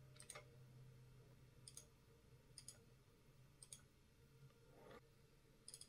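Faint computer mouse clicks, about five quick press-and-release pairs spread out, over near silence.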